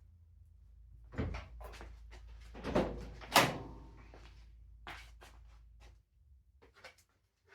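A string of knocks and clatters from handling tools and a filler board at the car, the loudest about three and a half seconds in, over a low hum that stops about six seconds in.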